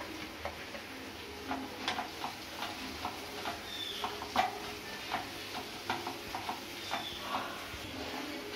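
Wooden spatula stirring in a non-stick kadai, tapping the pan irregularly, as fresh mint and coriander leaves are tossed into onions and ginger-garlic paste with a light sizzle of frying underneath.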